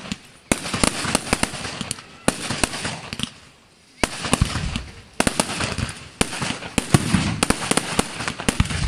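Fireworks display: many sharp bangs and dense crackling in quick succession. There is a brief lull about halfway, then the bangs come thick again.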